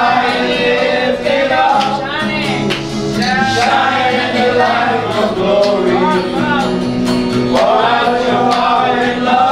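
A group of voices singing a worship song together, accompanied by acoustic guitar.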